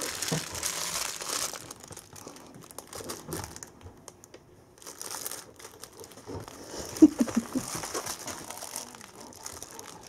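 Packaging crinkling and rustling as a Bernese Mountain Dog noses through a box of toys and treats, with small irregular clicks. One short, sharp, louder sound about seven seconds in.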